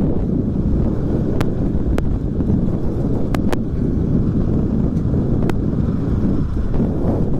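Honda CB500X parallel-twin motorcycle riding off-road, its engine rumble mixed with heavy wind buffeting on the microphone, with a few sharp clicks along the way.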